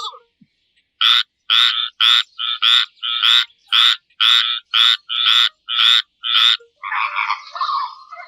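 A frog croaking in a steady series of short, evenly repeated calls, about two a second. A different animal call begins near the end.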